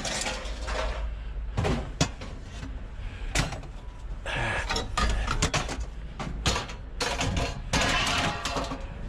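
Scrap metal clanking, knocking and scraping as pieces are pulled out and shifted around, with a string of sharp knocks.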